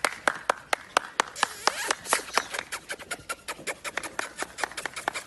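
Hands clapping in a fast, even rhythm, about four sharp claps a second.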